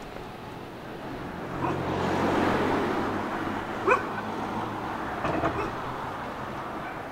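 A car drives past on the street, its engine and tyre noise swelling and then easing off. A dog gives a short sharp yelp about four seconds in, and a fainter one a second and a half later.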